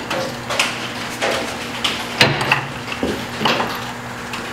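Hand tools clinking and knocking on steel, several separate sharp metallic strikes, while bell housing bolts are being removed from a John Deere 550 dozer. A steady low hum runs underneath.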